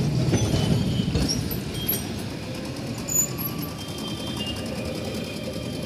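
Street traffic noise: a steady low rumble of road vehicles, with faint high tones over it and a short sharp knock about three seconds in.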